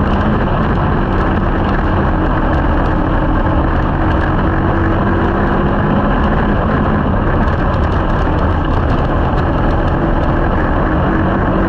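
A slingshot dirt-track car's small single-cylinder engine running at steady revs, heard loud and close from a camera in the cockpit, with a constant hum and rattle from the car on the dirt.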